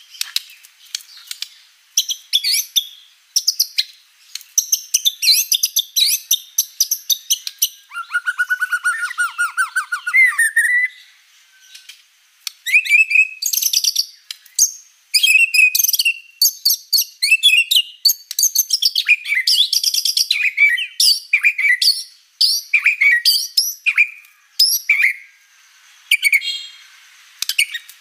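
White-rumped shama (murai batu) singing a long, varied song of sharp whistles, chips and warbled phrases, with a rapid trill about eight seconds in that rises at its end, and a few short pauses.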